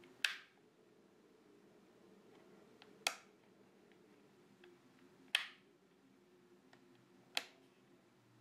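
Toggle switches on a FlySky T6 radio transmitter being flipped by hand, four sharp clicks a couple of seconds apart, each one changing the selected flight mode.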